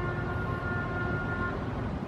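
A ship's horn sounds one long, steady blast that stops about one and a half seconds in, over a low rumble.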